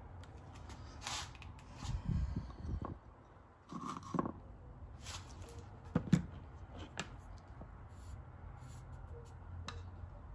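Handling noises at a soldering bench: scattered clicks, taps and light scrapes of tools and small parts being handled. A few low knocks come about two seconds in and a sharp click about six seconds in, over a low steady hum.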